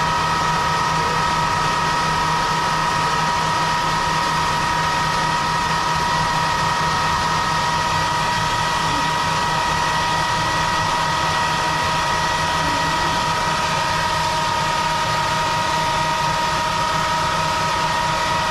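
A motor-driven machine, switched on for the bee-nest removal, running steadily at constant speed with a high whine over its running noise.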